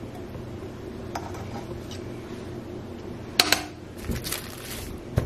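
Ceramic lid knocking and clinking against a Dutch oven as it is handled, with two sharp clinks about three and a half seconds in, a brief rustle, and a low knock and another clink near the end, over a steady low hum.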